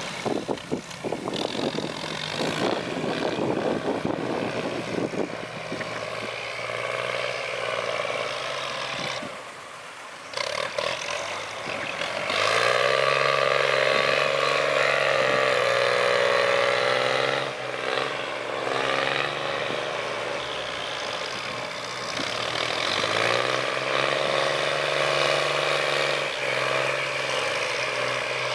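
Heavy diesel engine of earthmoving machinery running under load, its revs climbing sharply twice, about twelve and twenty-three seconds in, and holding high. Rattling and clanking in the first few seconds.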